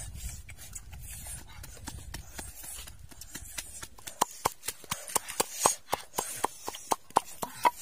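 Wooden pestle pounding red chilies in a wooden mortar: quick, even knocks, about five a second, starting about four seconds in.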